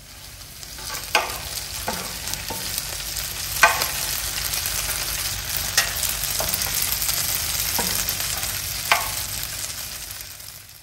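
Diced potatoes sizzling as they fry in a grill pan, stirred and turned with a slotted spatula. The spatula knocks and scrapes against the pan with a few sharp clicks over the steady sizzle.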